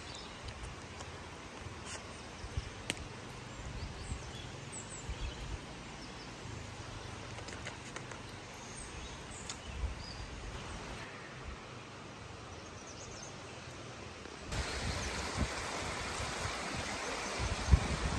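Forest ambience: the steady rush of a mountain stream, with a few light clicks and faint high chirps over it. About fifteen seconds in, the rush steps up, louder and brighter.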